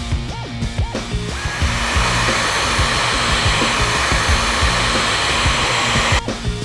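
Diamond Shine ionic hair dryer blowing steadily. It comes up about a second in and cuts off suddenly near the end.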